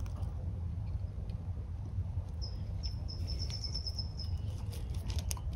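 A high, thin pulsing trill lasting about two seconds in the middle, over a steady low background rumble. Near the end come a few small sharp clicks of hands working in gravel mulch around the succulents.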